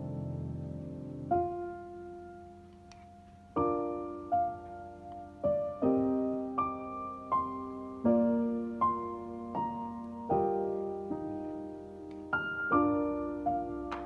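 Background solo piano music, slow notes ringing and fading one after another, sparse for the first few seconds and then more steadily spaced.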